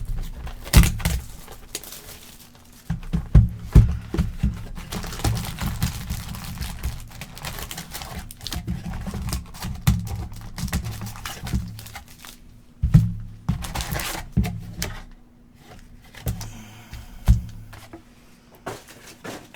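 Trading-card packaging being handled: plastic wrappers crinkling and tearing, with scattered knocks and thunks of cardboard boxes and packs on a table.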